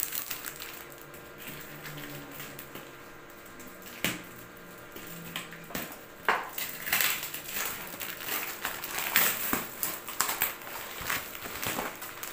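Packing tape being ripped and peeled off a cardboard box, with the cardboard crackling and rustling as the taped flaps are pulled open. The tearing comes in irregular rips that grow busier and louder in the second half.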